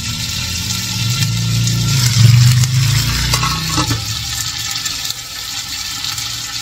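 Chicken pieces cooking in a little water in a covered clay cazuela, a steady sizzling hiss over a low hum. A little after three seconds in, the enamel lid is lifted off the pot.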